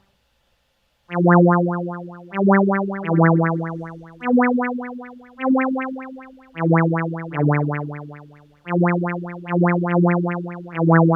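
Saw-wave synth patch in Harmor playing a looped melody of about ten notes after a second of silence. Each note starts sharply and fades out, and a fast tempo-synced LFO sweeps the low-pass filter cutoff so each note pulses rapidly.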